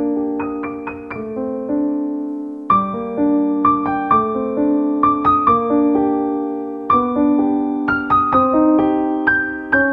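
Background piano music: a slow solo piano melody over ringing chords.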